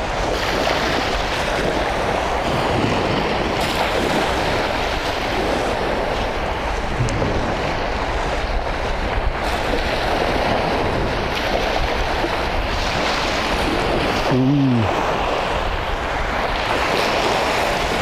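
Small sea waves washing onto a sandy shore, with wind blowing over the microphone as a steady rushing noise. A brief low voice-like hum about three-quarters of the way through.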